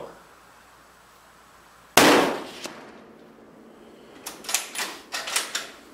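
A single shot from a large-calibre rifle about two seconds in, very loud and sharp with a short echoing tail. It is followed near the end by a quick run of smaller sharp clicks and clatter.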